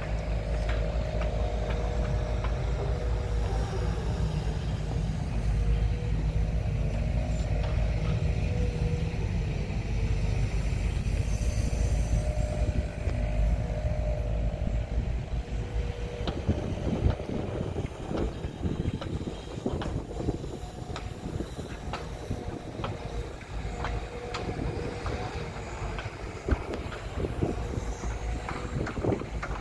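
Crawler excavator's diesel engine running steadily with a whine on top while it digs. From about halfway the whine drops away and many short clanks and knocks come through over the engine.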